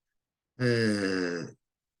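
A man's drawn-out hesitation vowel, a held 'uhh' about a second long, starting about half a second in, its pitch sinking slightly.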